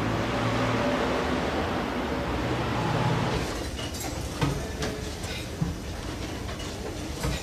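Steady vehicle rumble and hiss that eases off about halfway through, leaving a few light knocks and clicks.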